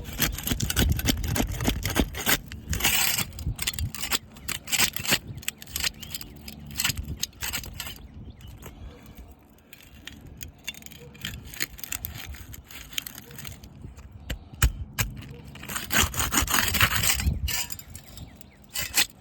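Stainless steel putty knife scraping and prying under asphalt shingles to break their sealant strip, with rapid gritty scrapes and crackles as granules break loose. The shingles are shedding a lot of granules, a sign of weakened shingles. The scraping goes in two busy spells with a quieter stretch in the middle.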